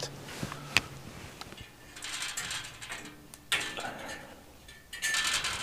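Metal parts and tools being handled: a sharp click about a second in, then short bouts of rattling and scraping.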